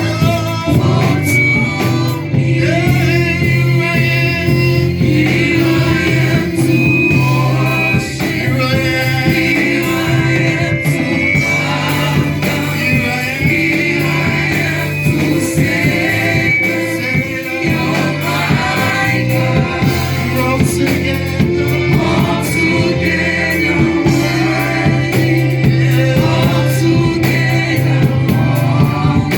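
Gospel choir singing with band accompaniment: a steady bass line under a regular beat.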